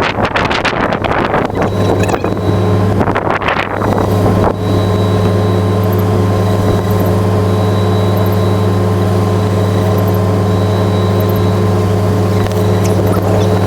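Vehicle engine running at a steady pitch, a constant drone, with gusty wind noise on the microphone over the first few seconds.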